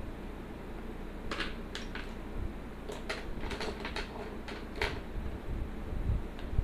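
About a dozen short, quick scratches of an inking pen drawing strokes, starting about a second in and stopping near the five-second mark, over a steady low hum.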